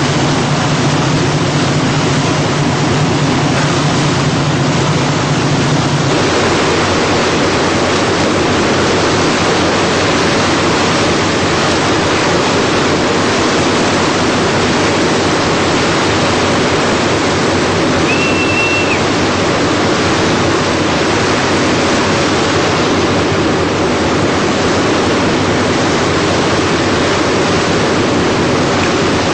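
Loud, steady rush of seawater churned along a moving ship's hull. A low hum underneath stops about six seconds in, and a single short high beep sounds about two-thirds of the way through.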